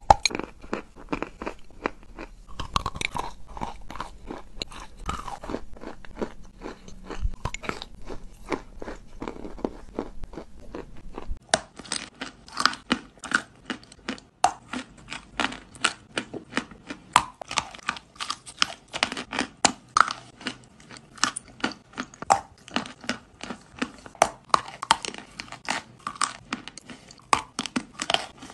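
Close-miked crunching and chewing of chunks of eating chalk and clay, many sharp crisp crunches a second. About eleven seconds in, the low background hum drops away, and the chewing of white chalk coated in wet paste gives crisper, more even crunches.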